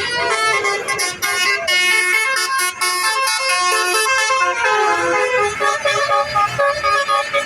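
Basuri musical bus horn playing a tune: loud steady notes that step quickly from one pitch to the next, several tones sounding together, in the telolet style.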